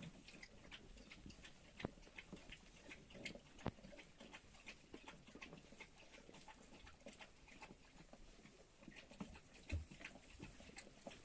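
Animals munching straw: faint, irregular crunching and rustling, with a few louder knocks.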